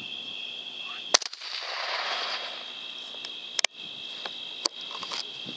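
A rifle shot about a second in: two .300 Blackout rifles fired almost together in a synced shot that drops the boar. Two sharper clicks follow a few seconds later, over a steady high chirring of insects.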